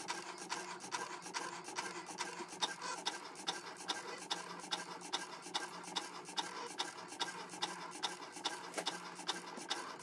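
Cricut Maker cutting machine running its print-then-cut calibration cuts: a steady motor whir as the carriage and rollers move the mat, with regular ticking about three times a second.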